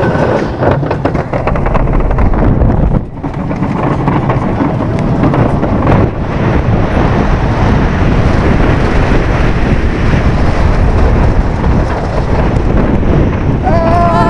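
Wooden roller coaster train running fast along its track, a loud steady rumble and rattle mixed with wind buffeting the microphone. Near the end the riders start screaming.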